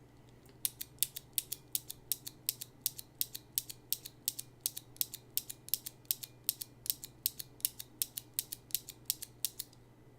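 Alps-clone clicky mechanical keyboard switch being pressed over and over, giving a sharp click roughly four times a second; it is a switch with a sharp tactile bump that drops straight to the bottom right after the click.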